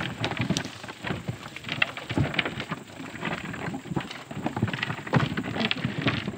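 Hoes scraping through loose clay soil and clods tumbling into an open grave as it is backfilled, an irregular pattering of thuds and rattles.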